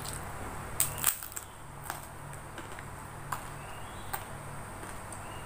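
Crisp fried peyek teri (anchovy cracker) cracking as it is broken and bitten: two loud snaps about a second in, then a few softer crunches, over a steady low hum.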